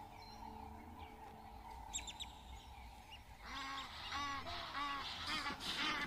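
Animal calls in the bush: a few short high calls about two seconds in, then a run of short calls about two a second, each rising and falling in pitch, starting about three and a half seconds in.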